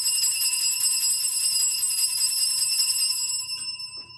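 Altar bells, a cluster of small sanctus bells, shaken in a continuous shimmering ring that marks the elevation of the chalice at the consecration. The shaking stops about three and a half seconds in and the bells ring out briefly.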